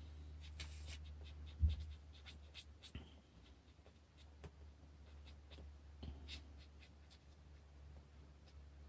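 Faint scratching and tapping strokes of an Ecoline brush pen's felt tip on notebook paper during shading, over a steady low hum. A single soft thump about one and a half seconds in.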